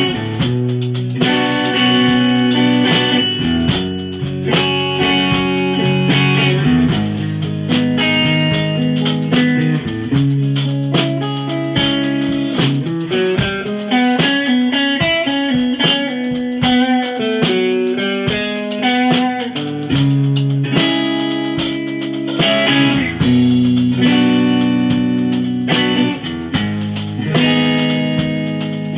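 Electric blues jam on a Fender Stratocaster through a 1964 Fender Vibroverb amp, with chords and quick single-note lead runs in the middle, over a drum kit keeping time.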